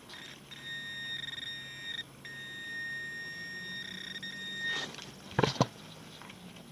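Metal detector sounding a steady high-pitched tone over a target in the dirt, breaking off briefly about two seconds in and stopping after about four seconds. Two sharp knocks follow near the end.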